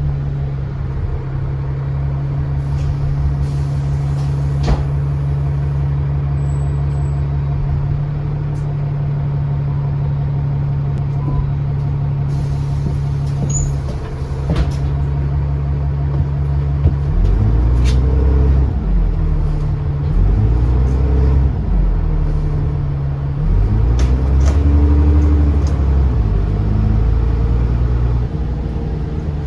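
Bus diesel engine heard from on board, idling steadily while the bus stands. About 17 seconds in it revs up and pulls away, the engine note rising and falling several times as the automatic gearbox changes gear.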